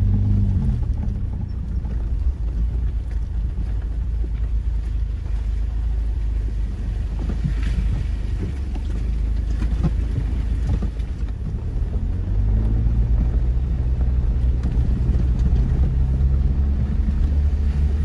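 Jeep creeping through a shallow, rocky creek crossing: a low engine hum with tyres sloshing through water and knocking over stones, and a few sharper knocks and splashes around the middle. From about two-thirds of the way in, the engine hum steadies as the Jeep rolls onto a gravel road.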